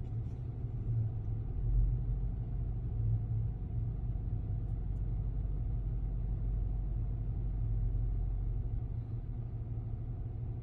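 Steady low rumble of a vehicle in slow, stop-and-go traffic.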